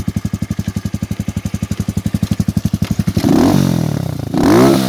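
Racer 200GY motorcycle's single-cylinder four-stroke engine through its stock exhaust, idling with even, distinct exhaust pulses. About three seconds in the throttle is blipped twice, the revs rising and falling back each time, the second blip the loudest.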